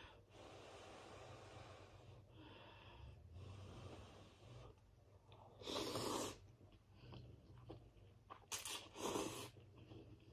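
Ramen noodles slurped off a fork: one loud slurp about six seconds in and two short, sharp slurps a couple of seconds later, with faint mouth sounds between.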